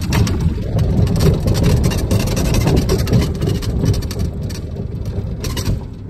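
Electric golf cart rolling across a gravel and dirt lot: a steady low rumble from the tyres, with crunching and rattling clicks throughout, easing a little near the end.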